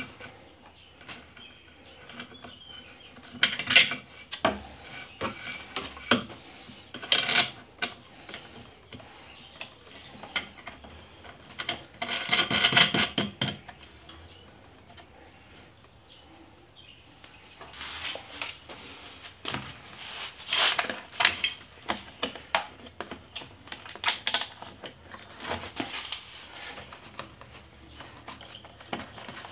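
Intermittent clicks, taps and light metallic clatter of hand work fitting a turn-signal indicator to a motorcycle's tail frame: small parts, wires and a hand tool being handled. A denser run of rattling comes about twelve seconds in, and more clusters of clicks in the last third.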